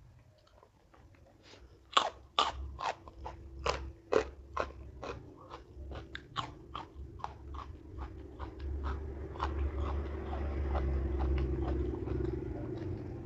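Close-miked crunchy chewing of raw food, the crisp bites and crunches coming about two to three a second from about two seconds in, loudest at first and then softer, with a low rumble building near the end.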